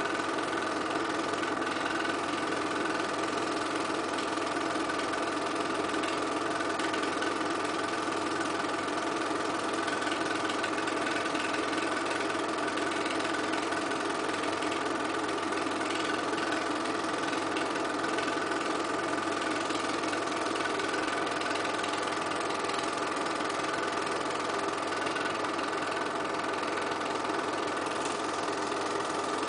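Home-movie film projector running with a steady, even mechanical whir.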